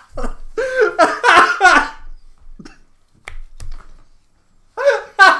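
Two men laughing hard: loud bursts of laughter for about two seconds, dying down to a few quiet gasps, then breaking out again near the end.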